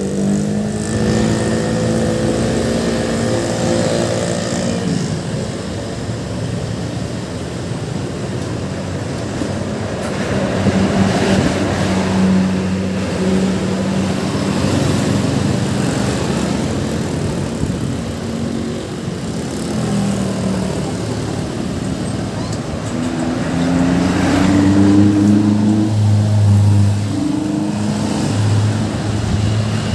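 Bus traffic passing, with a bus's multi-note 'telolet basuri' musical horn sounding held notes at the start and again from about 23 seconds in, where the notes step up and down in pitch like a tune.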